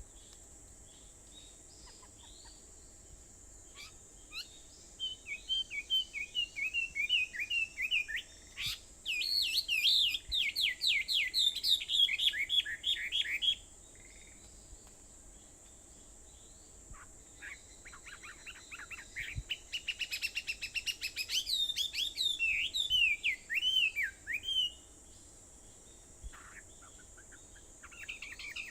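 Songbirds singing in two long runs of rapid, warbling, gliding phrases. The first starts about four seconds in and lasts some nine seconds; the second runs from about seventeen to twenty-five seconds. A steady high-pitched hiss runs underneath throughout.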